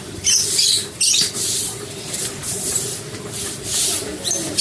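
Water being thrown over a cage in several short splashes, about a second apart.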